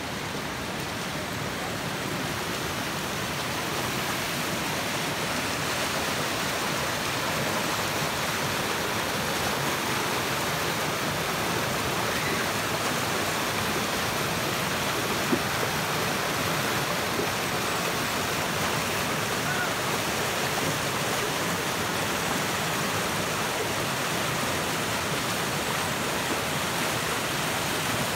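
A rocky stream's rapids and small cascades rushing over and between boulders: a steady, full rush of white water that grows a little louder in the first few seconds.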